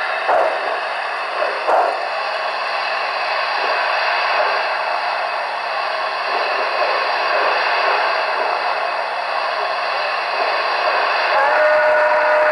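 DCC sound system of an HO-scale Broadway Limited Santa Fe 4-6-4 steam locomotive model, playing a steady steam hiss through its onboard speakers, with a couple of puffs in the first two seconds. Near the end the model's steam whistle starts to blow.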